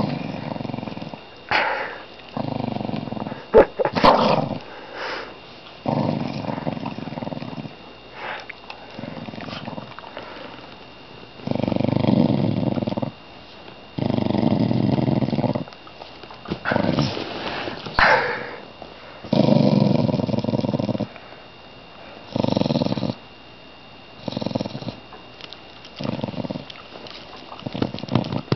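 A dog growling in long, rough, low rumbles that come in a regular rhythm with its breathing, about one every two seconds.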